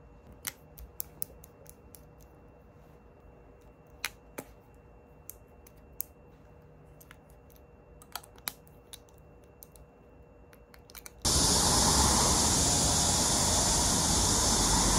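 Small sharp clicks and taps of makeup caps and tubes being handled: a lip-tint bottle and a lipstick being opened and closed. About eleven seconds in, this gives way abruptly to a loud, steady hiss of rain falling.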